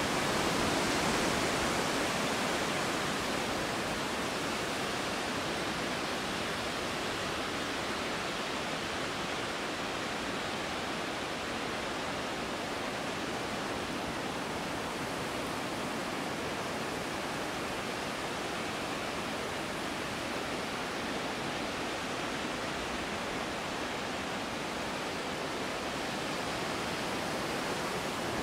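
Strong wind blowing as a steady rush, a little louder over the first few seconds.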